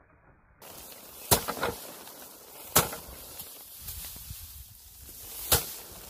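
Sheaves of harvested rice being beaten to thresh out the grain: three loud thwacks spaced a second and a half to three seconds apart, with a couple of lighter knocks after the first.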